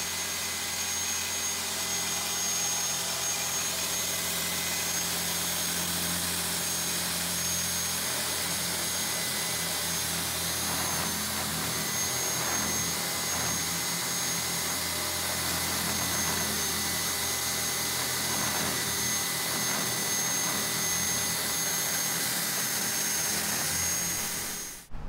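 Hilti electric core drill running steadily as its diamond core bit bores into a stone block with water cooling: an even motor whine with a high, constant tone over grinding noise. It stops abruptly near the end.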